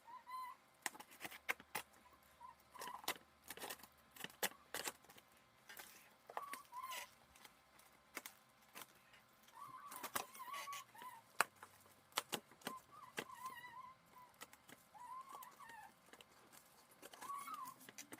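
Hands opening a cardboard shipping box: many short clicks, scrapes and crinkles as the packing is worked loose. Faint short squeaky chirps come and go throughout.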